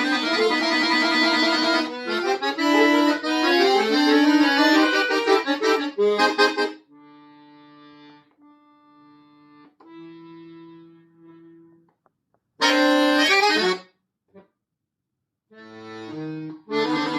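Solo accordion playing with sharp contrasts: a loud, busy passage of chords and fast notes for about seven seconds, then soft held notes, a short loud chord burst with sudden silences around it, and loud playing again near the end.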